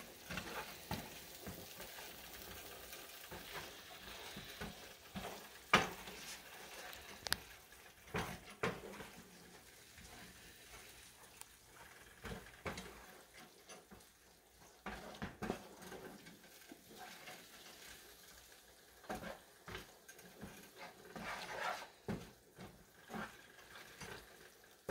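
Wooden spoon stirring and scraping chopped vegetables and spices in a skillet, with a faint sizzle as they cook down and soften. Several sharp clicks stand out about six to nine seconds in.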